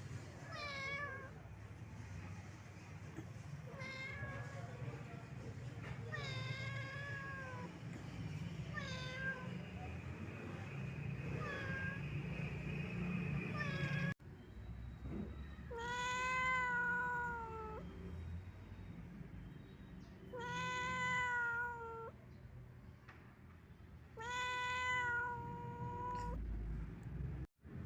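Domestic cat meowing repeatedly: about five short meows over a low background rumble, then, after an abrupt break, three longer, louder drawn-out meows a few seconds apart.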